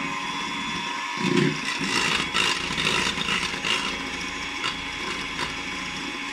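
Electric mixer running steadily at speed, its beaters whipping eggs and vanilla in a bowl, with a few sharp knocks about two to four seconds in.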